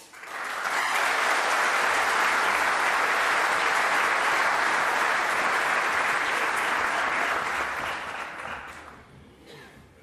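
A packed chamber of parliamentarians applauding. The applause swells up within the first second, holds steady, and dies away about eight to nine seconds in.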